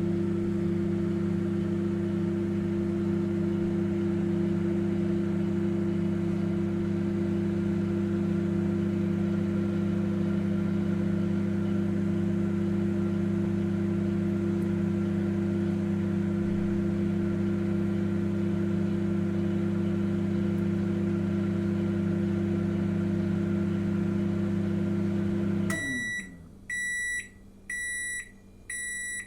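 Microwave oven running with a steady low hum, then switching off near the end with a brief falling whir as it winds down, followed by four high beeps about a second apart signalling that the heating cycle is done.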